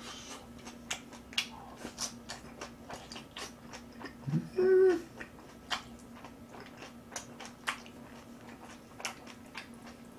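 Close-miked eating sounds of someone chewing kimchi and boiled pork: a run of wet mouth clicks and smacks. A short hummed "mm" rises in pitch just under halfway through, over a faint steady electrical hum.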